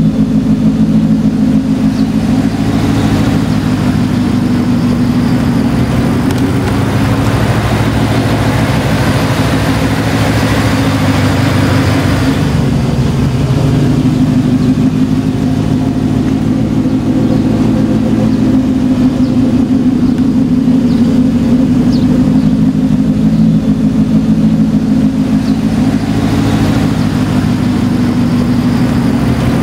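The supercharged 5.4 L V8 of a 2009 Ford Mustang Shelby GT500, fitted with Bassani headers, an X-pipe and a side exhaust, idling steadily with a deep, even burble.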